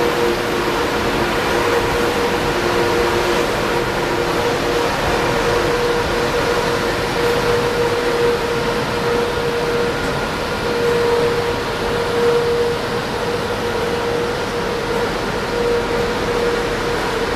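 Renfe class 112 high-speed train moving slowly past at low speed: a steady hum of its electric traction and cooling fans, carrying a few steady tones, with no rise or fall in pitch.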